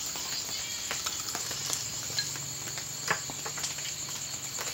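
Steady high-pitched chirring of night insects, crickets, with scattered light clicks of chopsticks and spoons against bowls and the pot. A low steady hum comes in about a second and a half in and stops near the end.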